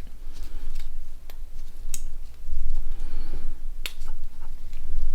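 A few sharp, scattered clicks of small Nokia 1100 phone parts, plastic and metal, being handled and pressed together during reassembly, over a low steady hum.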